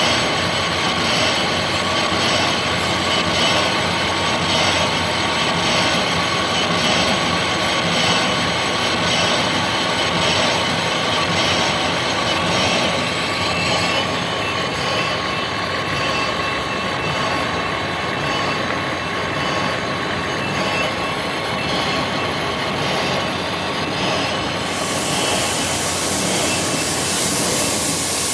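Metal lathe running under power feed, turning a large steel flange with a carbide tool: a steady gear whine with a faint pulse about every two-thirds of a second. About three quarters of the way through, a steady hiss joins in.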